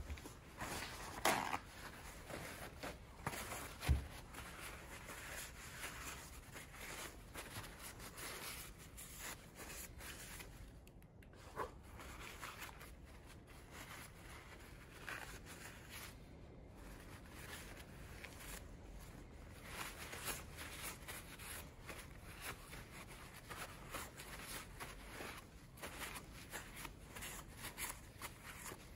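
Faint, irregular rustling and rubbing of a cloth and paper towel wiping a metal PCV valve part clean by hand. A couple of small knocks come in the first few seconds.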